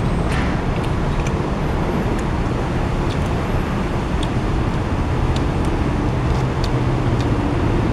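Steady roadway traffic noise from a busy highway, a constant low rumble of passing cars, with a few faint clinks of a fork and knife on a plate.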